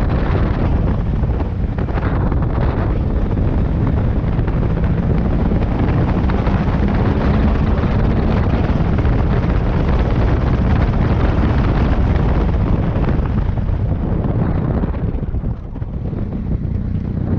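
Wind rushing over the microphone of a moving motorcycle, with its engine running steadily underneath; it eases a little near the end.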